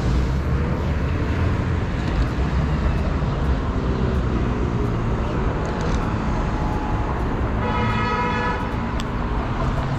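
Steady low rumble of city street traffic, with a short pitched tone lasting under a second about eight seconds in.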